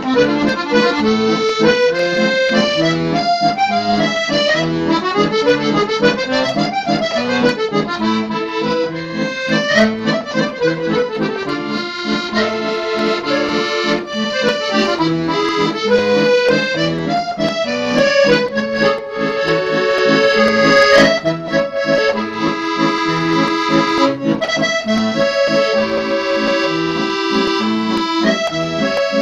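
Accordion music: a quick melody that runs up and down over held chords.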